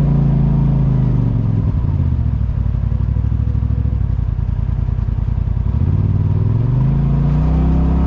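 Polaris RZR side-by-side engine easing off to a low, pulsing chug for a few seconds, then revving back up near the end.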